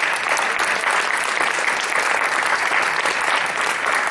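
Congregation applauding: many people clapping together in a steady, dense patter.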